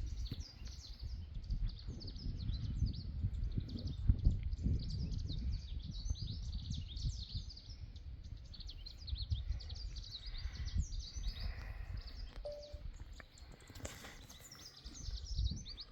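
Birds and insects chirping in a dense, continuous chorus of short, high, falling chirps, over a low rumble that swells and fades.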